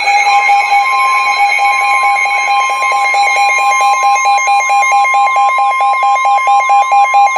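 Emergency alert tones before a weather warning: a steady electronic tone held over a lower beeping tone, which turns into choppy pulses toward the end, with a row of repeating rising-and-falling electronic sweeps above them.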